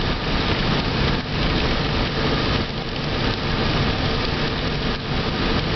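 Steady road noise inside the cabin of an electric-converted 1987 Dodge Daytona at about 55 mph on a wet road: tyres hissing through water and rain on the car, with the windshield wipers sweeping the glass.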